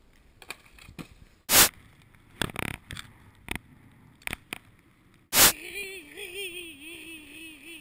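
Skis or a snowboard scraping and hissing over snow, broken twice by a loud sharp bang. Near the end a person's voice makes a long wavering cry.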